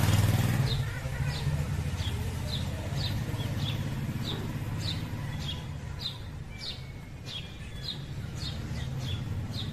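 A bird chirping over and over, short high falling chirps about twice a second, over a low rumble of traffic. An engine sound fades out in the first second.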